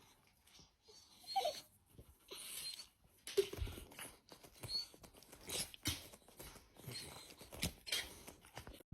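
A dog making faint sounds: a few short whimpers among scattered clicks and rustles.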